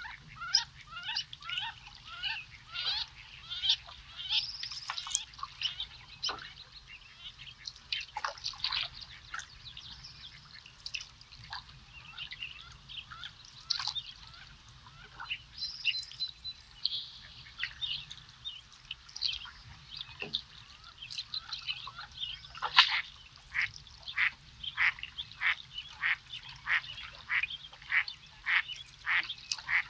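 Wild birds calling, waterfowl among them: many short calls overlapping, then a fast series of repeated calls, about two a second, over the last several seconds.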